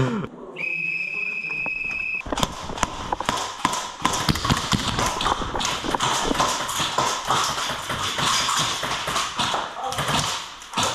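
A high, steady signal tone sounds for about a second and a half. Right after it, a group of people moves off fast, and rapid footsteps and shuffling on a hard floor fill the rest.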